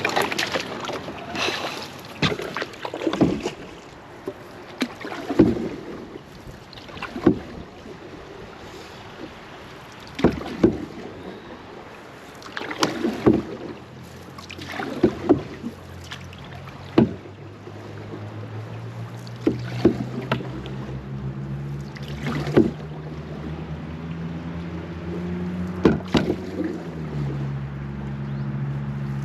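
Canoe being paddled and poled through a shallow, clogged canal: irregular paddle strokes, splashes and hollow knocks against the hull every second or two. A low steady drone comes in over the second half.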